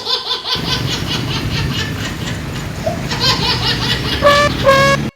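Laughter over a steady low rumble, then two short toots of a bus horn a little after four seconds in.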